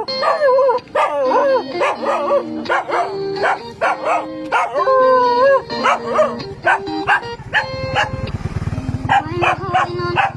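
A dog howling in long notes that glide up and down, broken by short yips and barks. A low buzzing hum comes in about eight seconds in.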